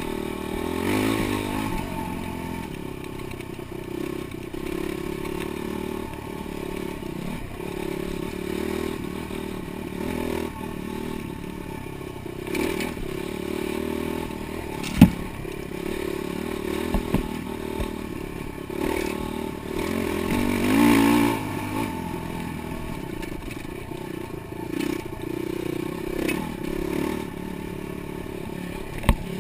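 Dirt bike engine running under way off-road, the revs surging up and falling back several times. A sharp knock comes about halfway through.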